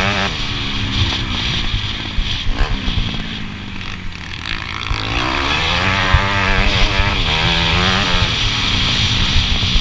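Motocross bike's engine heard from a camera mounted on the bike while racing: the revs rise and fall with the throttle, drop off and go quieter for a couple of seconds around the middle, then climb and hold high. A few sharp knocks come through from the bumpy track.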